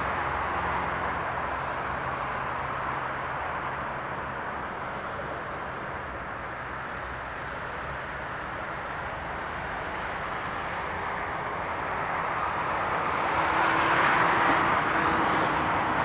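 Steady distant city traffic noise, swelling about thirteen seconds in as a vehicle passes closer, then easing back.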